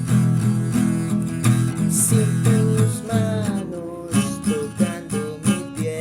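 Music: an acoustic guitar being strummed under a gliding melody line, with a steady pulse of strokes.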